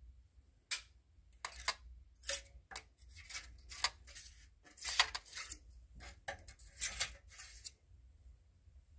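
A flat metal scraper scraping against the metal coil and rim of a boiler's combustion-chamber heat exchanger, a dozen or so short strokes loosening deposits after a year of use.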